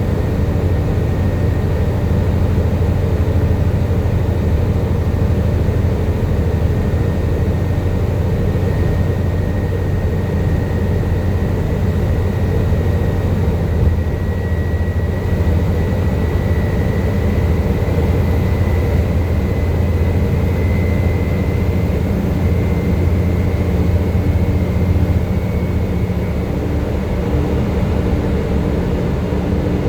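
Volvo B7TL bus's six-cylinder diesel engine running hard under power, with a steady low drone, and over it the high vacuum-cleaner-like 'hoover' whine that slowly climbs in pitch and fades out near the end.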